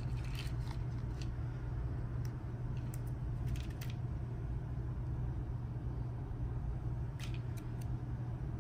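Faint rustles and light clicks of small 35 mm film frames being sorted through in a box, a few scattered handling sounds over a steady low hum.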